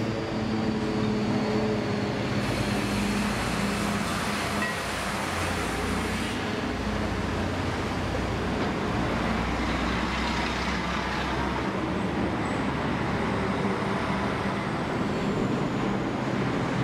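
Steady rumble of vehicle traffic, with no clear pauses or separate events.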